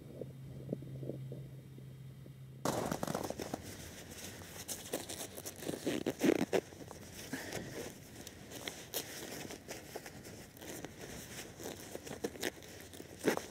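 A faint steady low hum, then from about two and a half seconds in, close rustling and crunching of winter clothing and snow with scattered louder crackles.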